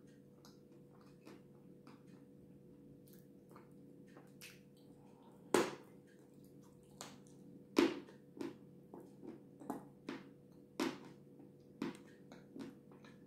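Close-miked wet chewing and lip smacks of a mouthful of soft cream, irregular and sparse at first, then louder and more frequent smacks in the second half, over a faint steady hum.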